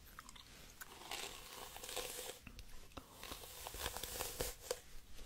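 Crinkling and scratching from small objects being handled and rubbed, swelling and fading unevenly with a few small clicks.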